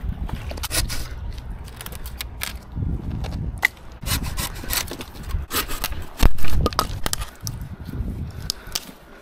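Dry dead branches cracking and scraping as they are snapped and pulled from a driftwood brush pile: irregular sharp cracks with rustling and scraping between them, the loudest crack about six seconds in.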